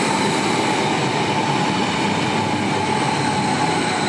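ODEG double-deck electric multiple unit running past along the platform: a steady rolling rumble with a thin whine that sinks slightly in pitch.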